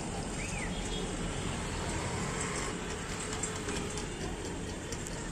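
Steady street noise from passing traffic, an even hum with no distinct events, and a faint short chirp about half a second in.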